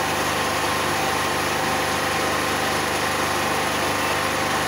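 A steady mechanical drone, like an engine running, with a few held tones in it and no change in level.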